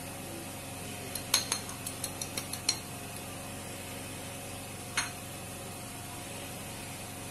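Metal spoon clinking against a ceramic plate while egg and sugar are stirred on it: a quick run of about eight clinks a second or so in, then one more about five seconds in, over a steady background hum.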